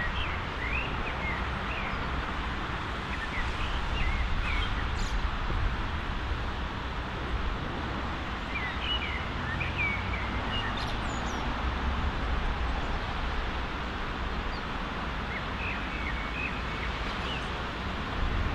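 Small birds chirping in short scattered phrases over steady outdoor background noise with a low rumble.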